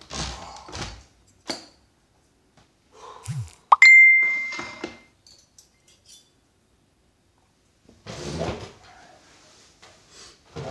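Cutlery and crockery knocking and scraping during a meal, with one sharp clink about four seconds in that rings on for a little over a second.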